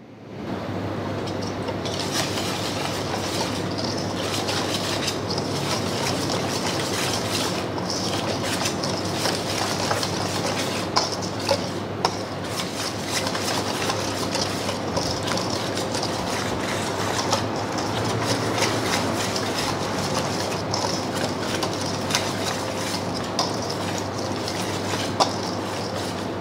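Wire whisk beating a thick spice-and-yogurt marinade in a stainless steel bowl: continuous rattling and scraping of the wires against the metal, starting about half a second in.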